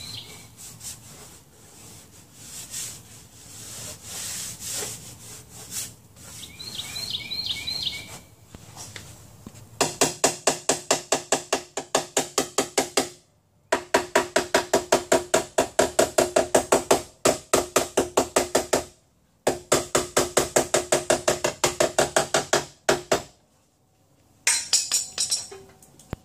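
Rapid metal-on-metal tapping of a small body hammer on a car's sheet-metal door pillar, about seven blows a second in runs of several seconds with short breaks, each blow with a short ring. The tapping starts about ten seconds in, after quieter scraping.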